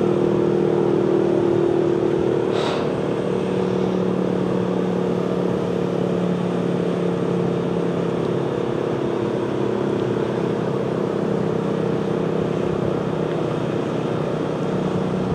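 Super Sirex outdoor warning siren sounding its steady full-alert signal, a single tone held at an even pitch and level.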